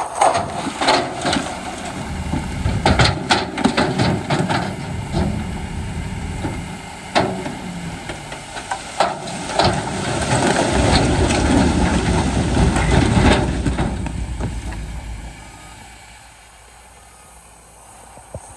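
Heavy earthmoving machinery working rock: a diesel engine running under load with many sharp knocks and clatters of stone, the low rumble swelling, then falling away about fifteen seconds in.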